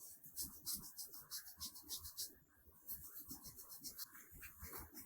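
Faint, quick scratchy strokes of a makeup applicator rubbing on a green melon's rind, about five a second, with a short pause midway.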